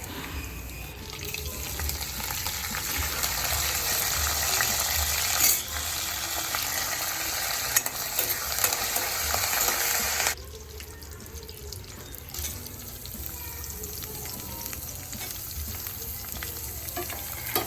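Tempering spices and dals (mustard seeds, cumin, chana and urad dal, curry leaves) frying and sizzling in hot oil in a pan while being stirred. The hiss grows louder about a second in, then drops suddenly to a quieter sizzle about ten seconds in.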